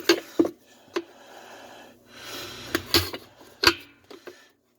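Flathead screwdriver prying around a splined part on a washer's drive shaft: a run of sharp metal clicks and knocks, about six, with some scraping in between, as the part is worked loose.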